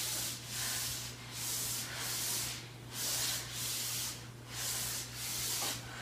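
Exercise sliders under the feet swishing back and forth across carpet in a steady rhythm, a little under one sweep a second, as the legs swing side to side in a low plank.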